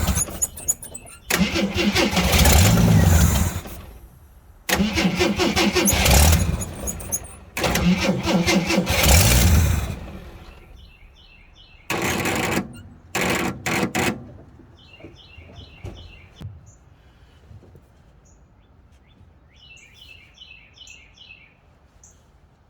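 A 1979 Jeep J10's AMC 258 inline-six being cranked over by the starter in four bursts of a few seconds each without catching, then a few short stabs of cranking. It is struggling to pick up fuel, which the owner puts down to a vacuum leak letting it suck too much air. Birds chirp faintly in the quiet that follows.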